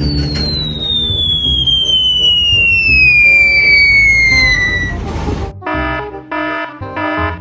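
A long whistle falling steadily in pitch for about five seconds over a low rumble, like a cartoon falling-bomb sound effect. It gives way to five short, blaring multi-tone blasts in an even rhythm, like an alarm or horn.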